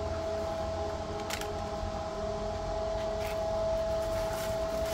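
Steady electric motor whine over a low hum from a box truck's motorised cargo floor, with a couple of faint knocks from the boxes.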